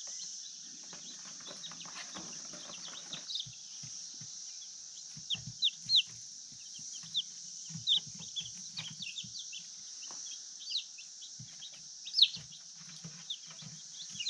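Newly hatched chicks peeping: short, high, falling cheeps scattered throughout, a few of them louder. There is a soft rustle in the wood shavings about one to three seconds in, over a steady high hiss.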